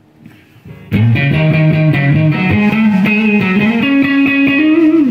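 Electric guitar overdriven through a Way Huge Green Rhino overdrive pedal into a Mesa Boogie Formula preamp and 50/50 power amp: after about a second of near quiet, a driven riff of moving bass notes and bends, climbing higher near the end. The pedal's mid control is set where its high mids are boosted.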